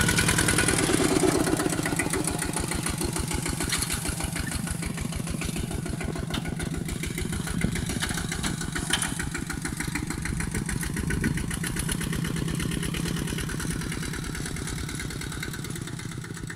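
Two-wheel walking tractor's single-cylinder diesel engine running steadily while pulling a plough through dry soil, growing gradually fainter as the machine moves away.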